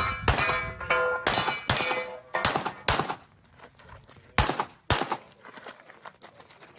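A string of pistol shots fired in quick pairs during a USPSA stage. About six shots come fast in the first two seconds, with a ringing tone hanging between them, then two more pairs about half a second apart, with longer pauses between.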